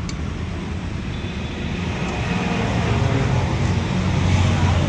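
Steady low rumble of road traffic, growing louder from about two seconds in.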